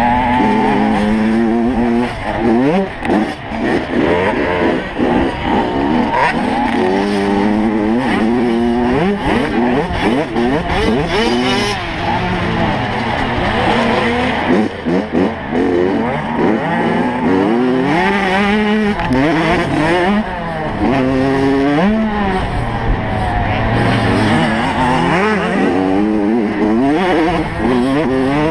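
85cc two-stroke motocross bike engine, heard from on board, revving up and dropping off again and again as the rider accelerates, shifts and backs off through the turns.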